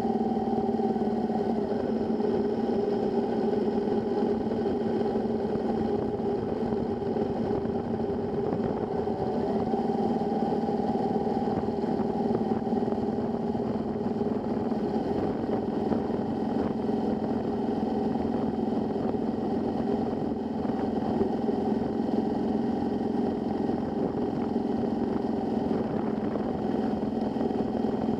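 Motorcycle engine running at a steady riding speed. Its pitch shifts briefly about a second in and again around ten seconds in.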